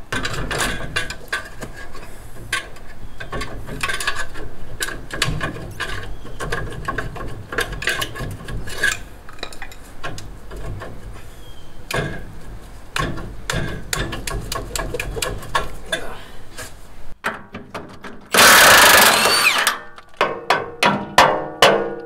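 Hand tools working on rusted steel front-suspension parts: a long run of clinks, knocks, scrapes and ratchet-like clicks. Near the end a loud hiss lasts about a second and a half, followed by several sharp metal strikes that ring.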